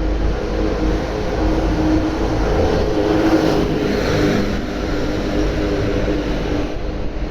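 Road traffic running past, with a steady engine rumble. One vehicle swells up and passes about three to four seconds in.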